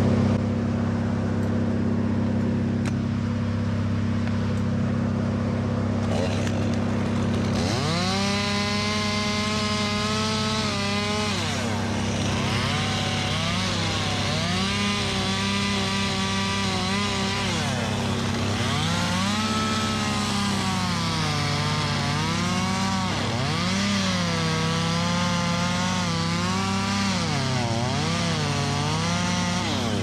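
Top-handle chainsaw cutting through an oak limb. About seven seconds in it revs up, and its pitch sags and recovers repeatedly as the chain loads in the cut. A steady low engine hum runs underneath throughout.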